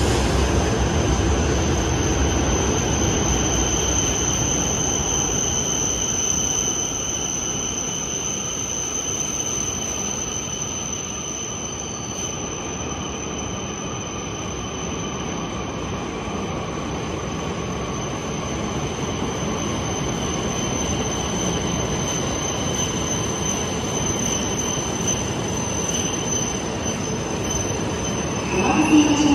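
Coupled E5 and E6 Shinkansen train running slowly alongside the platform and braking toward a stop: a steady rumble under a constant high whine, easing off over the first half.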